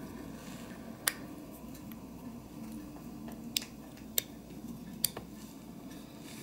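Four small sharp clicks as fingers handle and press the parts of a Matchbox Field Car diecast model: one about a second in, then three more between three and a half and five seconds in.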